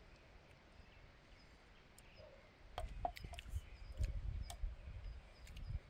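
Quiet outdoor air with faint short bird chirps. From about three seconds in come a low rumble and several sharp clicks and knocks of chopsticks, dishes and glasses on a metal mesh table during a meal.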